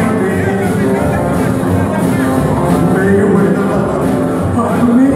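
Live rockabilly band playing: upright bass, drums and acoustic guitar.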